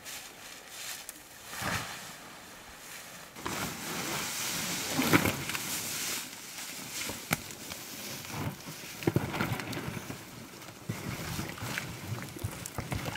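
Footsteps and rustling through dry grass, then a PVC inflatable boat scraping and bumping as it is set down on the water at the bank's edge, with a few sharp knocks among the rustling.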